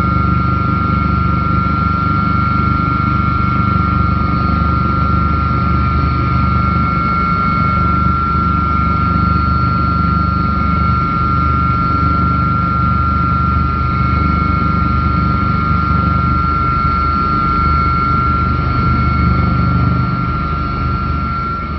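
Helicopter in flight, heard from aboard: a steady low drone from the rotor and engine under a loud, steady high-pitched whine. It starts fading out near the end.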